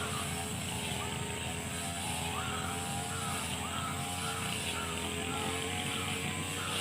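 A brush cutter's small engine runs steadily while cutting grass. A short high tone rises and falls about twice a second over it.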